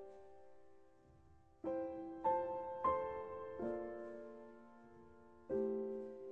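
Slow, soft piano music: single notes or chords struck one at a time and left to ring and fade, with a lull near the start and five notes over the following few seconds.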